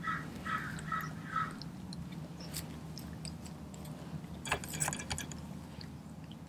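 Doberman chewing a whole raw feathered chicken, crunching through it with scattered sharp cracks and a burst of louder crunching about four and a half seconds in.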